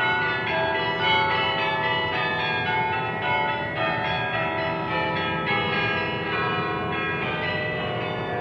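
Church bells ringing a tune: a rapid run of overlapping strikes, each note ringing on under the next.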